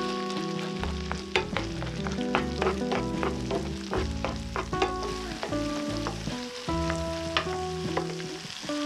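Tomato paste sizzling as it fries in butter and oil in a nonstick frying pan, stirred with a silicone spatula, with frequent sharp clicks and scrapes of the spatula on the pan.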